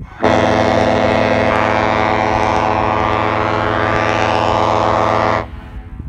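Large Airchime KM-series ship air horn with a bronze power chamber, blown on compressed air: one long, deep, steady blast of about five seconds that starts and stops abruptly.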